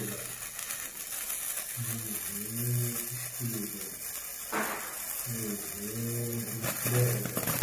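A stick sparkler fizzing and crackling steadily as it burns. A voice is heard faintly twice in the background.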